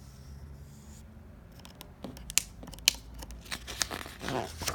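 Pages of a paper picture book being handled and turned: crisp rustling with a few sharp clicks and snaps starting about two seconds in.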